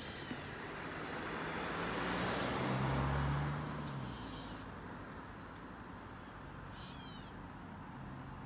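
A car driving past over the grade crossing, swelling to its loudest about three seconds in and then fading away. A bird gives a short run of quick descending calls at the start and again about seven seconds in.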